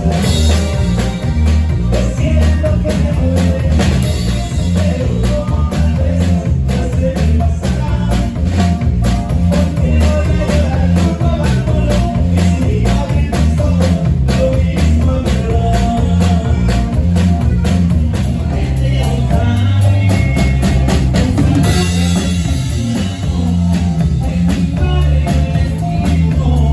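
Live cumbia band playing: drum kit keeping a steady beat under bass and electric guitar, with a man singing into a microphone.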